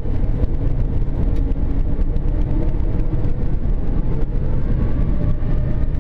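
Airbus A380 engines and airframe heard in the cockpit: a steady low rumble, with a faint whine that slowly rises in pitch through the second half as the engines spool up for takeoff.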